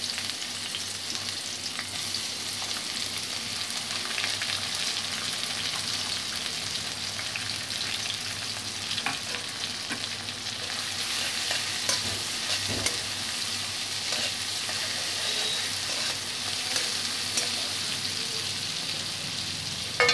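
Mung dal frying in hot mustard oil in a metal kadai, sizzling steadily with scattered pops and crackles.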